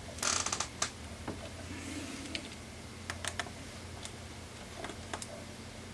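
Small sharp clicks and taps from hand tools working on an iPhone 6S as it is being opened: a quick flurry of clicks near the start, then a few scattered clicks, over a steady low bench hum.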